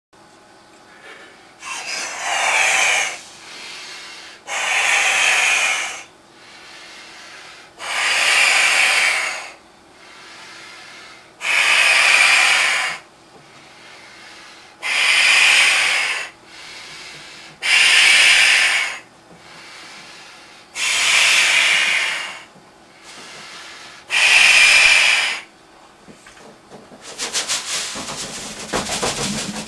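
A latex punchball balloon being blown up by mouth: eight long, forceful breaths blown into it, with a shorter, quieter intake of breath between each. Near the end the breaths give way to a rapid fluttering hiss.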